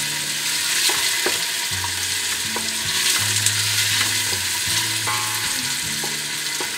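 Sliced shallots and garlic sizzling in hot oil in a stainless steel pot, stirred with a wooden spoon that gives light taps and scrapes against the pot.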